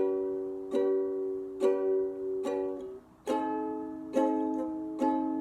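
Ukulele strummed in single down-strokes, about one chord every second. Each chord rings and fades before the next. The strings are briefly damped just before three seconds in.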